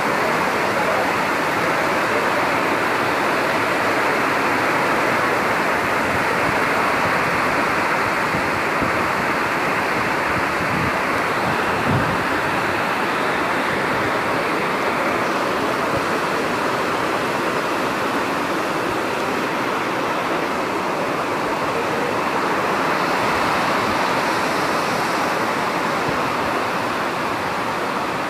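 Heavy monsoon rain pouring down in a steady, dense hiss on wet ground, with one short knock about twelve seconds in.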